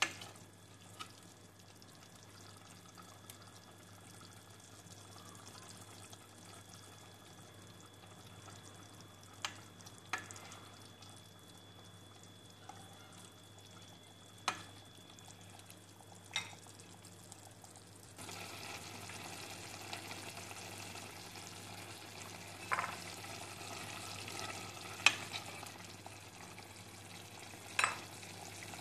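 A metal pot of chicken soup simmering on a gas stove: a faint steady bubbling hiss that grows louder about two-thirds of the way through, over a low steady hum. Several sharp clicks of a utensil knocking against the pot are scattered throughout.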